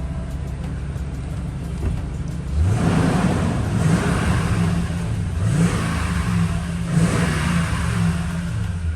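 Toyota Tundra engine idling, then revved several times from about two and a half seconds in. It is running on new ignition coils and spark plugs, with the misfire code cleared and, by the owner's account, no misfire.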